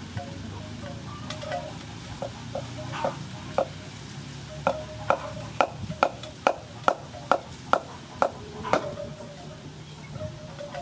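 Cleaver striking through a round fruit onto a thick wooden chopping block: a few separate knocks, then a quick even run of about ten chops, a little over two a second, stopping about a second before the end.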